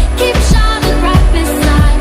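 Background pop song with a heavy, regular bass beat and a singing voice.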